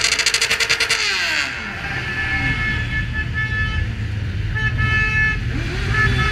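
Music cuts off with a stuttering, slowing-down glide about a second and a half in. It gives way to the low rumble of motorcycle engines and vehicle horns honking: a long held toot from about four and a half seconds in and another near the end.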